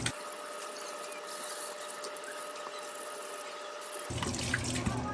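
Water running steadily over espresso machine parts being rinsed and brushed clean, with a faint steady hum underneath.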